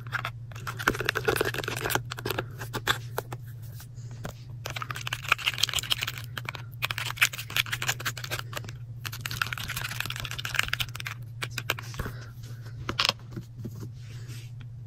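Shampoo slime being stirred fast with a plastic stir stick in a small plastic tub: rapid clicking and tapping of the stick against the tub, in runs broken by short pauses. The shampoo is being worked until it turns bubbly and thick.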